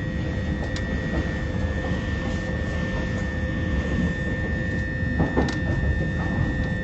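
Class 357 Electrostar electric multiple unit running, heard from inside the carriage: a steady rumble with a constant high whine.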